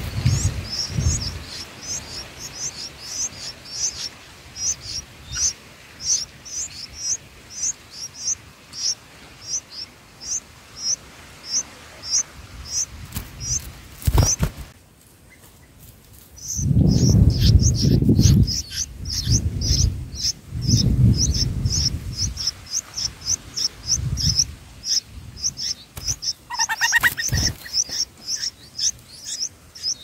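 Red-vented bulbul nestlings begging with short, high chirps at about two a second, breaking off briefly just before the middle and then starting again. Low rumbling noises come in the second half, and a single lower, falling call sounds near the end.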